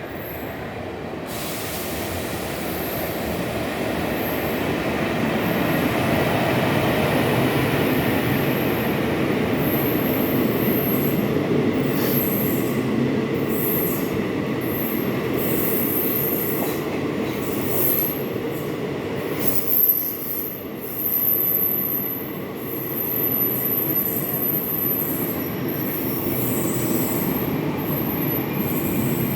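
Mangalore–Chennai Mail passenger train pulling into the station: the rumble of coaches rolling along the track grows louder over the first several seconds, with high-pitched wheel and brake squeal over it. There is one sharp knock about two-thirds of the way through.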